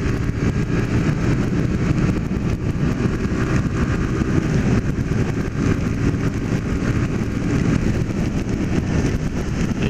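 Single-cylinder four-stroke engine of a Honda CG 150 Fan motorcycle running steadily at cruising speed, mixed with wind rush and the hiss of tyres on a wet road.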